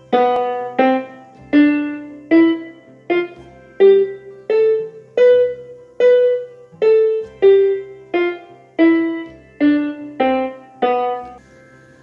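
Casio Casiotone CT-S200 electronic keyboard playing single notes in a piano voice, about sixteen slow even notes climbing up a scale and then back down: the sa re ga ma sargam.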